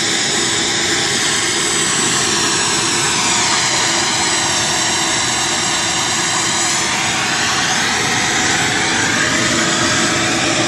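Wet/dry shop vacuum running with a loud, steady motor whine, sucking oil out of a partly stripped engine; the whine sags in pitch a few seconds in and climbs back as the suction load changes.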